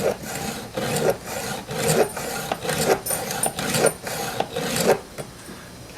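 Round chainsaw file rasping back and forth across a chainsaw chain's cutter tooth, about two strokes a second, sharpening the tooth. The filing stops about five seconds in.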